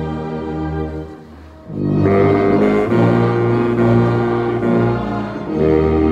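Baritone saxophone playing a slow hymn in long held notes together with other instruments in chords. The music thins out briefly about a second in, at a break between phrases, then comes back with a new sustained chord.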